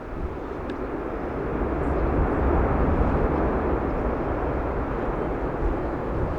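Jet airliner approaching to land, its engine noise swelling over the first couple of seconds and then holding at a steady level. A deep rumble from strong wind buffeting the microphone runs underneath.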